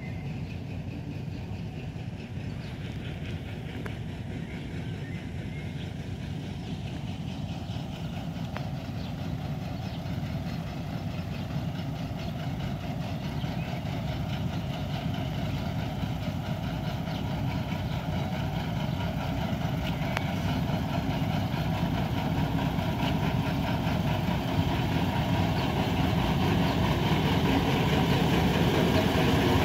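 Vintage Uerdingen diesel railbus standing at the platform with its underfloor diesel engine idling steadily, the hum growing gradually louder.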